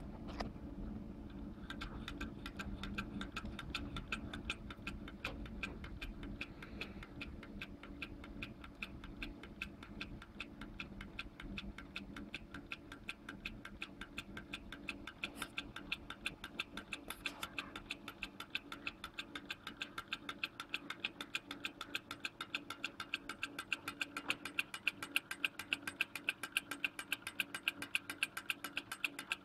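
Small two-cylinder model Stirling engine running, its mechanism ticking steadily at about four ticks a second; the ticks grow louder near the end.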